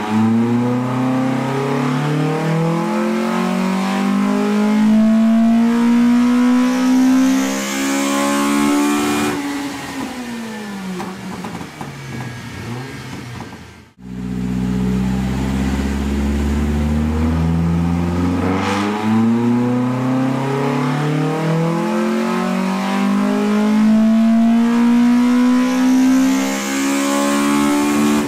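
Toyota AE86's 4A-GE four-cylinder with individual 47mm throttle bodies at full throttle on a chassis dyno. Its revs climb steadily to the top of a pull and drop off about nine seconds in; a second pull starts abruptly partway through and climbs again.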